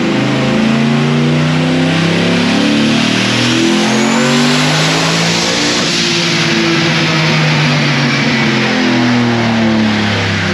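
Turbocharged 4.8-litre V8 of a 2005 Chevrolet Silverado, with a single 88mm turbo, making a wide-open-throttle pull on a chassis dyno. A high whine rises with the engine toward a peak about halfway through, then the sound eases off.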